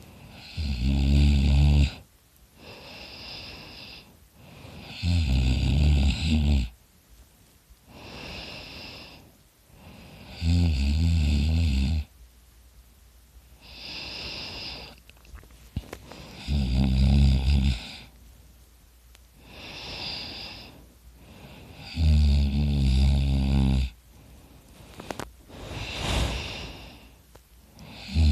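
A man snoring loudly in his sleep: five low-pitched snores, about one every five to six seconds, each lasting a second or two, with a quieter airy breath between them.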